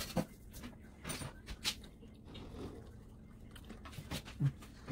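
A person chewing and eating steamed banana, with scattered wet clicks and smacks and a quieter stretch in the middle.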